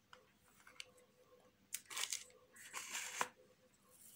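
Butter paper lining a steel plate crinkling faintly as dough balls are set down on it, in two short rustles about two and three seconds in, with a light tap near the second one.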